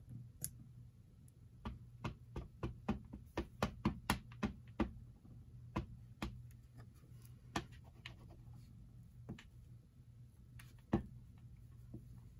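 A rubber stamp on a clear acrylic block tapped against a Distress Oxide ink pad to ink it. The taps come in a quick run of about ten, roughly three a second, then a few single taps further apart.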